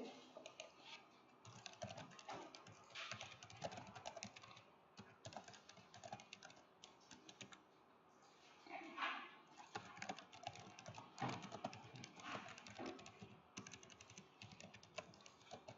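Faint typing on a computer keyboard, irregular runs of keystrokes with a short pause about halfway through.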